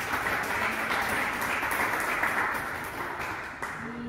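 Audience and panel applauding with hand claps, dying away about three and a half seconds in.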